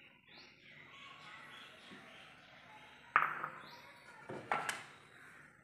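A metal spoon clinking against ceramic dishes while black pepper powder is added to boiled potatoes. There is one sharp clink about three seconds in and two lighter taps about a second later, over low background hiss.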